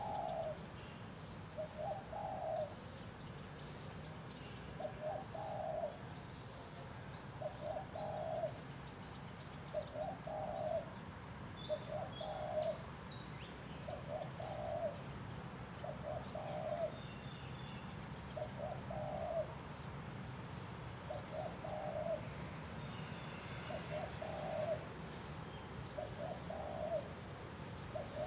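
Spotted dove, a trained decoy bird, cooing its song over and over, one short coo phrase about every two seconds.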